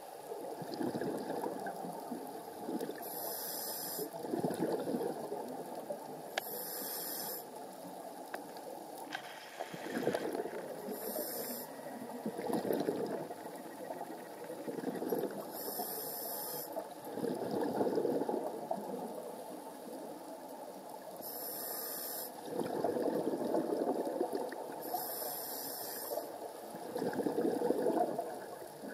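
Scuba diver's regulator breathing underwater: six breaths, each a short hissing inhale followed by a louder rush of exhaled bubbles, about every four to five seconds.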